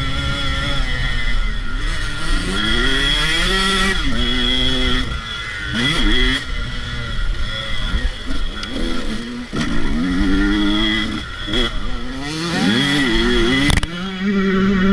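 Motocross dirt bike engine under hard riding, its pitch climbing again and again and dropping back as the rider accelerates, shifts and rolls off through the turns. Wind rumbles on the microphone.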